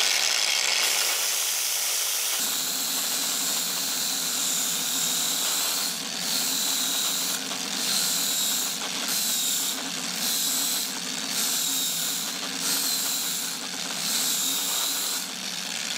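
Bosch X-LOCK angle grinder with a 120-grit flap disc, running and grinding a chip on a circuit board down layer by layer. A steady motor hum carries a high grinding whine and hiss that breaks off briefly about every second and a half.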